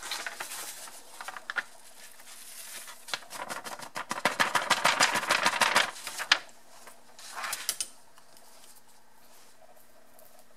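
Metal screen-door mesh being shaken to sift powdered match heads through it: a fast, dry rattle of the wire screen for about three seconds in the middle. Lighter rustling comes before it and a short burst of ticks after.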